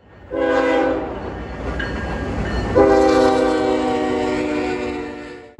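CSX freight locomotive's multi-chime air horn sounding a short blast, then a long blast beginning about three seconds in, over the low rumble of the approaching train.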